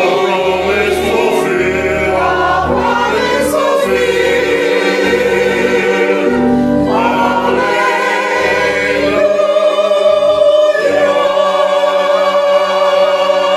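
Church choir singing a hymn together from hymnals, voices wavering on held notes over low sustained chords; a long final chord is held near the end.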